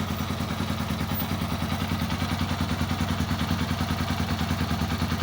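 Gilera SMX 250 Adventure motorcycle's single-cylinder engine idling steadily with an even, fast pulsing, warm after a few hours of riding.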